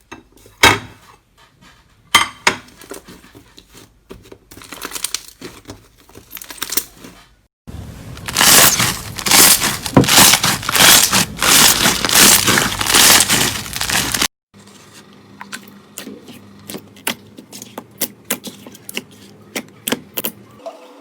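Slime being squeezed and pressed by hand, giving quick crackling, clicking pops, in several short clips that cut abruptly from one to the next. The densest, loudest crackling comes in the middle stretch, with sparser sharp clicks before and after.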